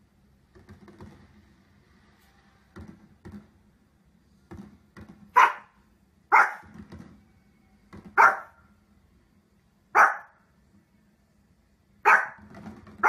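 Small fluffy dog barking in sharp single barks, one every one to two seconds, about six in all from about five seconds in. A few fainter short sounds come before them.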